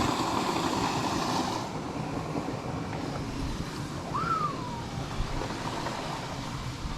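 Steady rushing noise of water flowing through the spillway, louder for the first second or so. A single short chirp rises and then falls about four seconds in.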